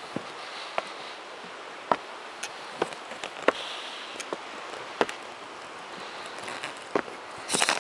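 Footsteps on a dirt forest trail: irregular light clicks and crunches over a steady hiss, with a louder rustle near the end.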